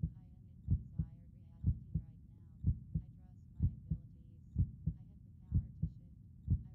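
Recorded heartbeat sound effect, a steady double thump (lub-dub) about once a second, with a faint voice underneath.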